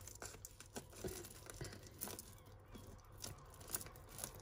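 Costume jewellery being handled and sorted: faint, irregular light clicks and handling noise as small metal and plastic pieces are picked up and set down, a few clicks a little louder about a second in and near the end.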